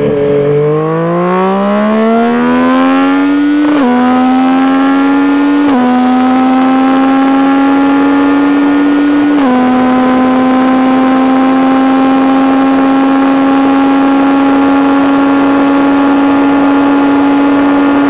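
A 2019 Yamaha Tracer 900's inline three-cylinder engine with an Akrapovic full titanium exhaust, under full-throttle acceleration. Its pitch climbs, then drops sharply three times in the first ten seconds as quickshifted upshifts go through without a break in power. After that it holds a nearly steady high note, rising only slowly, as the bike nears top speed with wind rushing past.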